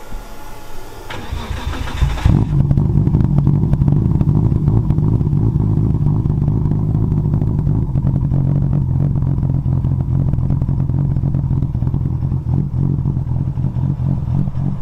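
The Nissan Skyline R33 GT-R's built 2.8-litre RB26 straight-six, with a big single turbo and 4-inch exhaust, is cranked by the starter for about a second and catches a little over two seconds in. It then idles steadily.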